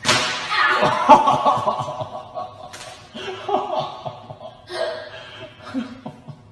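People laughing in bursts and chuckles, starting suddenly and loudest in the first second or so, then trailing off into quieter laughter.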